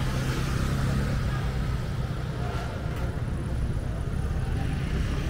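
Busy street ambience: a steady low rumble of passing cars and motor scooters.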